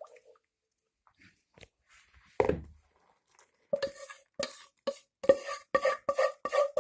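A single knock about two and a half seconds in, then from about four seconds a quick run of clinks and scrapes of a spoon against a ringing metal pan as melted butter and chocolate is scraped out.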